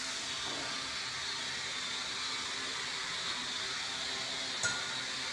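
Steady hiss of workshop background noise, with one short sharp click about four and a half seconds in.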